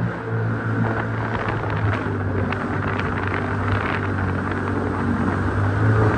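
Sea-Doo Spark personal watercraft engine running at a steady cruising speed, a constant drone over the hiss of water spray as the hull skims across the lake.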